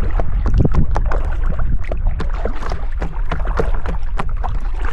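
Water splashing and lapping against a small boat, with many quick irregular taps over a steady low wind rumble on the microphone.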